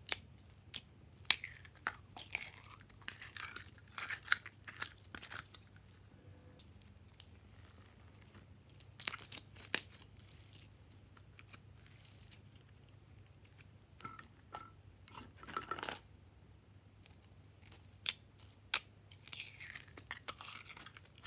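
Blue glitter slime squished and pulled out of a thin clear plastic container by hand: irregular bursts of crackling and tearing noise with sharp clicks, broken by quieter pauses.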